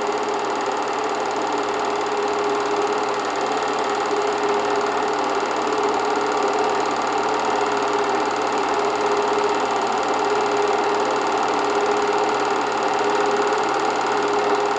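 8mm film projector running: a steady whir with a constant hum.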